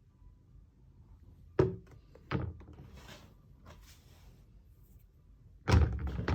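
A few sharp knocks of hard objects in a small room: two about a second and a half in, a fainter one in the middle, and a louder cluster of knocks near the end.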